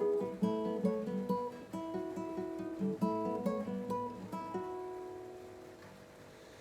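Acoustic guitar played by a learner, picked notes and strummed chords. From about four and a half seconds in, one chord is left to ring and fades away.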